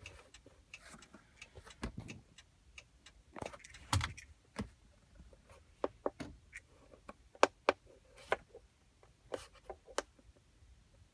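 Irregular sharp clicks and taps, a few stronger knocks among them: button presses and handling of a handheld key programmer.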